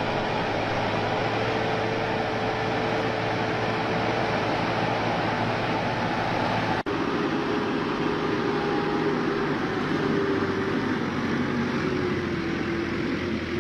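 Engine of a paddle-wheel mud tractor running steadily under load as it churns through a flooded rice paddy, a continuous drone with a brief break about seven seconds in.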